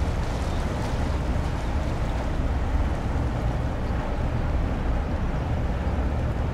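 The SUPERRUNNER JET II high-speed ferry's engines running as it passes at canal speed: a steady low rumble.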